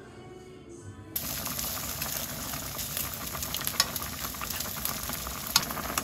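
Soft music for about a second. Then bacon and garlic cloves start sizzling in a hot frying pan, with scattered crackling pops.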